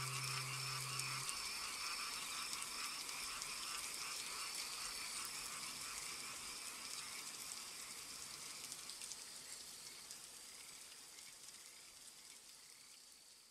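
The music's last low note ends about a second in. What remains is a faint chorus of frogs and insects that fades out steadily.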